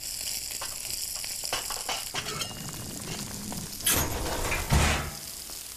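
Asparagus sizzling as it fries in a pan, a steady hiss that starts abruptly. Two louder kitchen noises come about four and five seconds in, the second a low thump.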